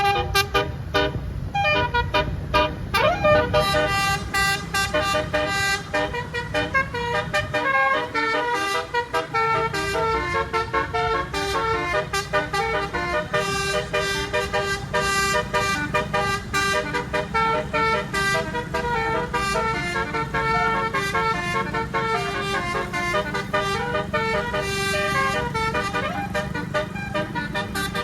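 An 18-note 'telolet' basuri bus horn playing a fast melody of short tooting notes that keep changing pitch, over the low rumble of the bus's engine.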